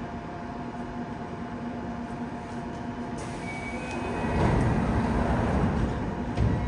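Subway train doors and platform screen doors sliding shut on a Yokohama Municipal Subway 3000A car, with a couple of short high tones about three seconds in and a louder rumble of the closing doors from about four seconds in, over the steady hum of the stopped train.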